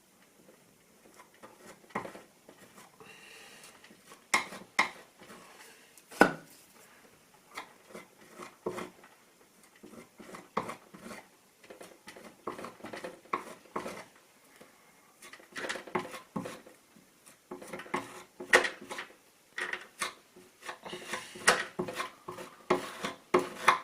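Irregular clicks, taps and scrapes of an applicator pressing and smoothing two-part wood filler into screw holes in a wooden door, busier and louder in the second half.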